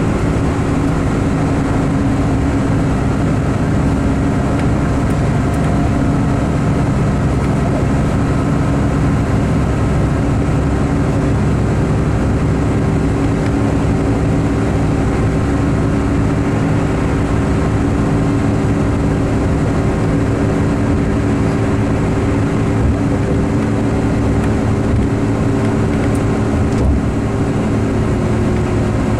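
Cummins Westport ISX12 G natural-gas engine of a 2016 MCI D4500CT CNG commuter coach running steadily at an even pitch over a continuous low rumble.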